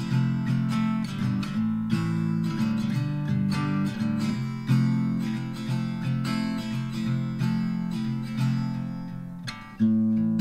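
Background music: strummed acoustic guitar with plucked notes at a steady pace.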